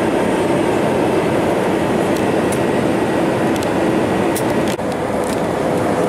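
Steady drone of an airliner's cabin noise from a window seat: jet engines and airflow. Near the end it is cut off abruptly and picks up again straight away, as the plane is back on the ground.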